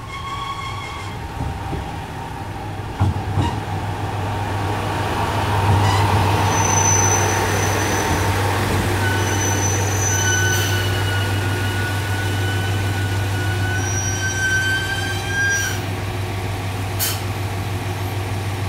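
Tosa Kuroshio Railway 9640 series diesel railcar pulling into a station, its diesel engine humming steadily. A high squeal sounds for about seven seconds as it slows, cutting off sharply as it comes to a stop, after which the engine idles.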